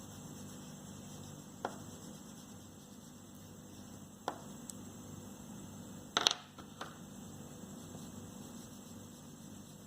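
Low steady hum with a handful of sharp clicks: single clicks near the start and the middle, then a louder double click and a smaller one just past the middle.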